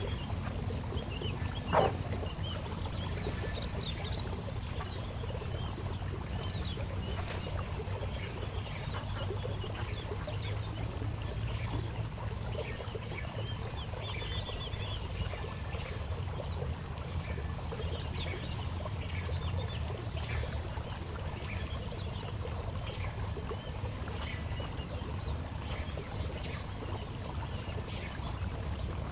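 Outdoor nature ambience: a steady low rumble and a steady high hum, with many short faint chirps scattered throughout. There is one sharp click about two seconds in.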